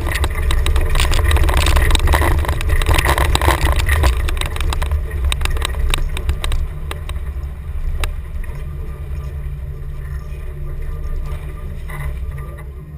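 1990 Chevrolet K5 Blazer driving off-road, a steady low engine rumble with many knocks and rattles over it. It is loudest over the first few seconds, then eases off a little.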